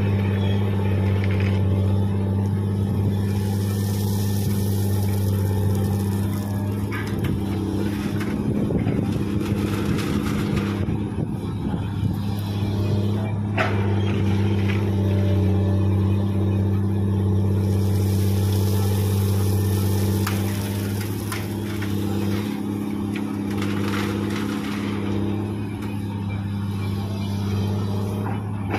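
Komatsu PC200 hydraulic excavator's diesel engine running steadily with a low drone while it digs, with scrapes and rattles of gravel as the bucket works the pile.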